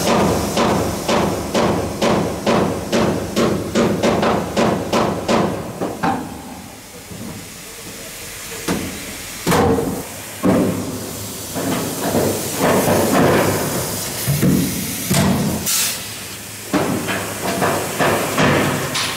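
Air-powered tool hammering on the aircraft's aluminium fuselage structure: quick regular blows about three a second for the first six seconds. It then gives way to irregular knocks and short bursts with some air hiss.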